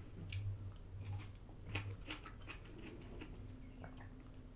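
Faint chewing and mouth sounds with scattered small clicks and taps, over a low steady hum.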